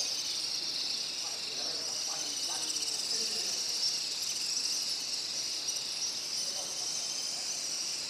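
Dense, steady high-pitched twittering of a large colony of swiftlet-like birds that nest in clustered clay nests, with scattered fainter, lower chirps.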